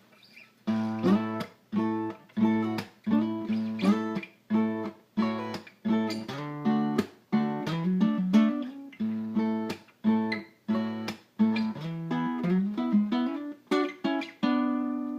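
Acoustic guitar playing an instrumental intro: short, choppy strummed chords in a steady rhythm with brief stops between them and a moving bass line, starting about a second in.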